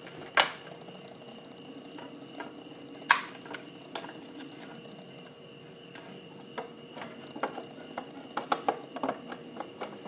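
Plastic front panel and metal chassis of a bench power supply being handled and fitted together: two sharp knocks, one just after the start and one about three seconds in, then a run of light clicks and taps in the last few seconds.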